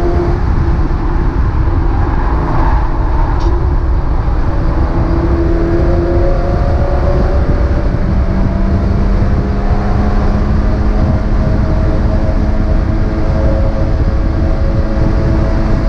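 Onboard sound of a Mazda MX-5 race car's four-cylinder engine running hard under heavy road and wind rumble. Its pitch drops about a second in and again about six seconds in, then climbs slowly through the second half as the car accelerates.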